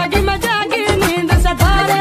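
Recorded song playing: a high singing voice with wavering held notes over a beat of drum hits.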